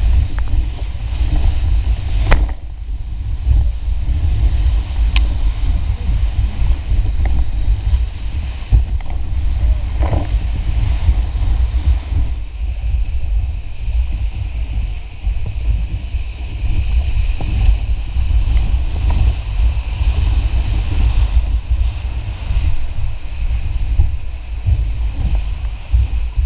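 Whitewater rushing around a raft running rapids, with a heavy low rumble of wind buffeting on the raft-mounted camera's microphone and a few sharp splashes.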